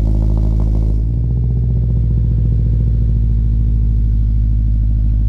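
Subaru BRZ's flat-four engine idling steadily, with a slight change in its sound about a second in.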